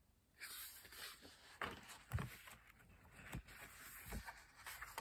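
A paperback picture book being handled and a page turned: faint paper rustling with about four soft knocks.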